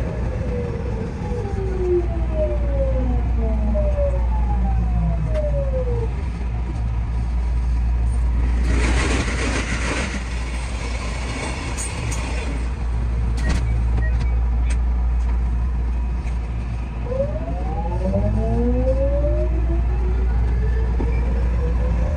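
JR West 207 series electric train's traction motors whining in several falling tones as it brakes to a stop, then several rising tones as it accelerates away, over a steady low hum. While it stands at the platform there is a few seconds of loud hissing.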